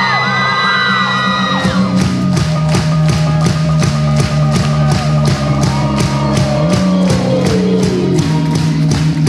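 Rock band playing live to a large crowd, with steady bass notes underneath. Voices whoop and sing over it at first, then a regular drum beat comes in about two seconds in.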